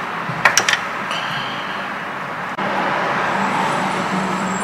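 Steady rushing background noise with a faint hum, getting a little louder about halfway through. A few sharp clicks come about half a second in as a laptop logic board is handled and set down on the bench.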